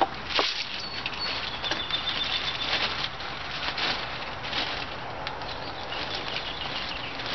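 A plastic bag crinkling and rustling in short, irregular bursts as it is handled, with a single knock about half a second in.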